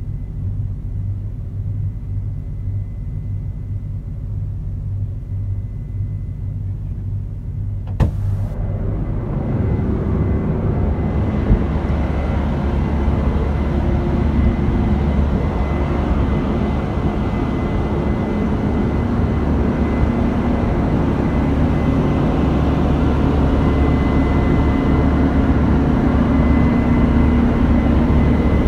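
Case IH Axial-Flow 8250 combine harvester running with a steady low drone. About 8 seconds in there is a sharp click, after which the sound grows louder and fuller and holds there.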